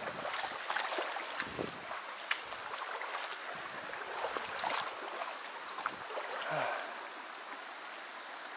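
Shallow stream running over rocks, with scattered footsteps and brushing knocks as someone walks along the bank.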